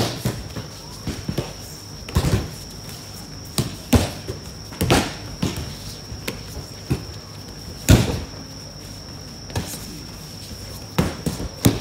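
Aikido breakfalls on tatami mats: about ten irregularly spaced thuds and slaps as thrown partners land, several pairs throwing at once. The loudest slams come at the start, about eight seconds in, and near the end.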